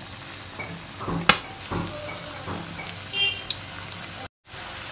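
Cornflour-coated potato pieces deep-frying in hot oil in a pan: a steady sizzle, with a sharp click about a second in and a few lighter ticks as more pieces go into the oil.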